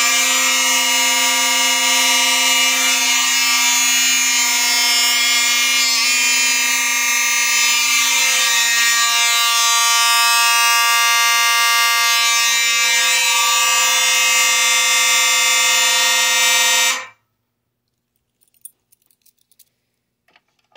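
Simplex fire alarm horn/strobes on the NAC 1 circuit of a Simplex 4006 panel, set off by a manual pull station and sounding together in one continuous, steady, buzzy horn tone. It cuts off suddenly about 17 seconds in.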